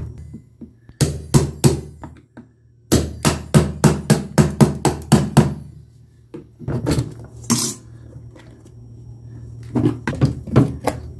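Sharp knocks and taps on the hard plastic case of a car battery as its top cover is worked loose. A few knocks come first, then a quick run of about four a second, then scattered ones near the end.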